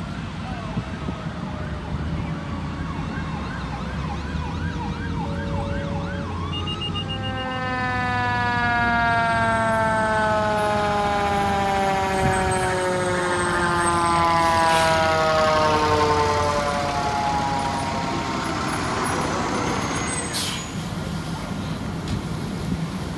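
Fire engine siren sweeping up and down, then a long tone that slides slowly down in pitch over about ten seconds, over the steady low rumble of the truck's diesel engine. Short hisses come near the middle and again near the end.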